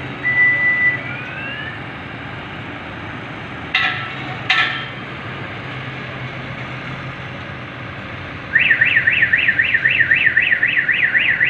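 An electronic alarm siren starts about two thirds of the way in and sweeps up and down about three times a second, loud over the street noise, typical of a car alarm. Earlier there is a steady high beep and two short sharp sounds.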